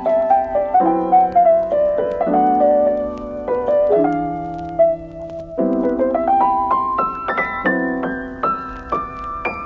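Background piano music: a slow melody over held chords, the notes changing every second or so.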